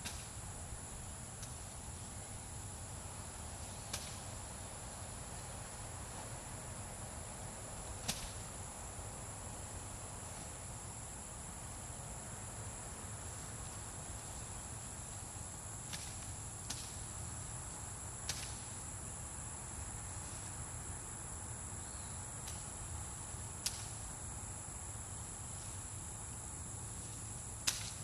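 Machete cutting through corn stalks: sharp single chops every few seconds, at irregular gaps, over a steady high insect chorus.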